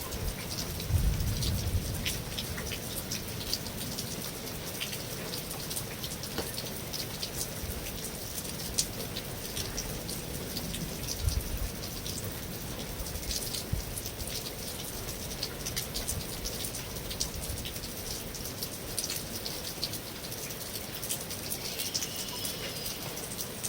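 Steady rain falling on a metal roof, a dense even hiss scattered with many separate sharp drop ticks.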